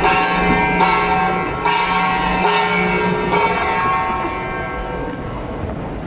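Hand-held brass gong struck with a stick about once a second, each stroke ringing on with several tones. The strikes stop a little after four seconds in and the ringing fades.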